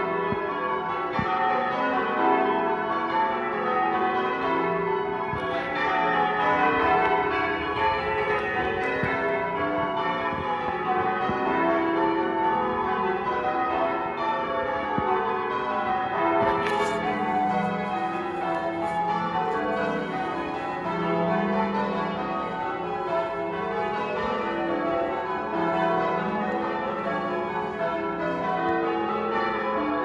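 Church bells of St Mary de Castro's tower ringing in changes, a continuous run of overlapping bell strikes in an even rhythm.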